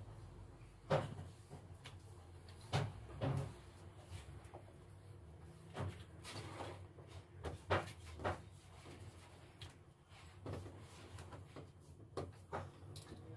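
Irregular knocks and clunks from household cleaning in a small bare room, like cupboard doors and objects being handled, about ten separate bumps spaced a second or more apart.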